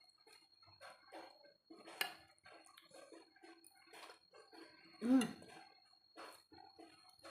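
Close-up eating sounds: noodle soup being slurped and chewed, with scattered small clicks of a spoon or fork against a bowl. About five seconds in, a short loud animal call with a rising-then-falling pitch cuts in.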